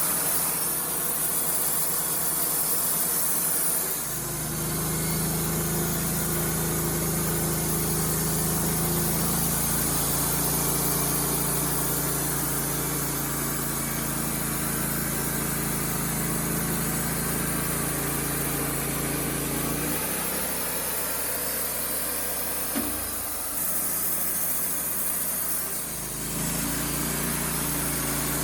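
Wood-Mizer LT35HD portable band sawmill's engine running steadily, its note and load shifting about four seconds in, again near twenty seconds and near twenty-six seconds.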